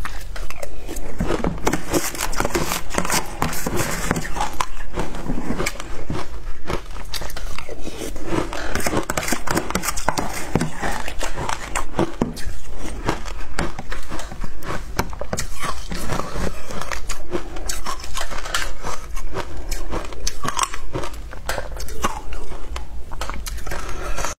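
Shaved ice being crunched and chewed in the mouth: a dense, irregular run of crisp crunches with no break.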